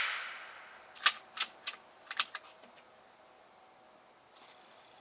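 The report of a shot from a JTS AirStryke .22 PCP air rifle fading away, then about a second in a quick run of five or six sharp metallic clicks, typical of the rifle's action being cycled for the next shot.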